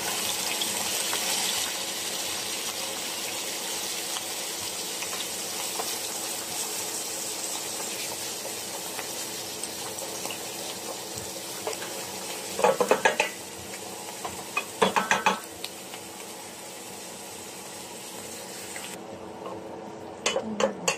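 Sliced mushrooms, garlic and onion frying in oil and melting butter in a stainless steel pan, a steady sizzle that eases off a little. About two-thirds of the way in, and again near the end, the spoon knocks against the pan in quick little runs while stirring.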